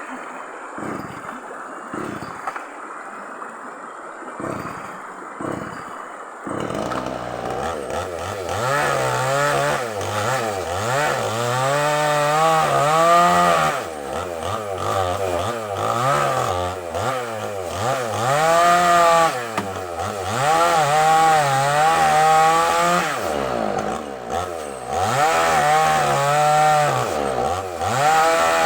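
Small two-stroke chainsaw cutting sengon wood: after about six seconds of quieter noise with a few dull knocks, the engine comes in loud, its pitch dipping and rising again and again as the chain bites into the log and frees up.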